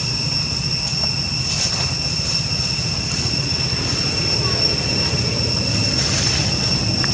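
Steady high-pitched insect drone, typical of a cicada chorus, holding one even whine over a low rumble.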